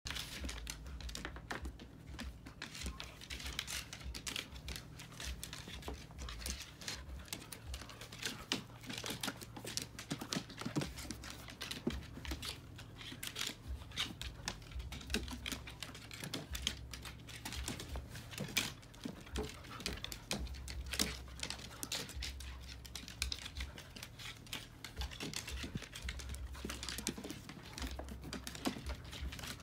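Two dogs' claws and paws clicking and scuffling on wooden deck tiles as they play, a rapid, uneven run of clicks, with a low rumble coming and going underneath.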